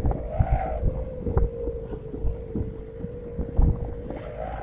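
Howling note of a 'serigala' (wolf-howl) exhaust on a Hino microbus: a steady high tone that climbs in pitch briefly about half a second in and again near the end as the bus pulls. Wind buffets the microphone.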